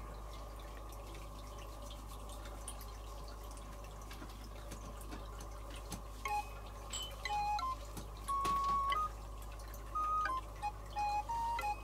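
Steady low room hum for about six seconds, then a simple melody of short single notes starts and continues, hopping between pitches: background music.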